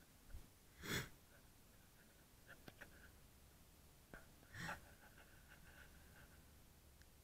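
Near silence inside a car, broken by two short breathy puffs, about a second in and just past the middle, with a few faint clicks between them.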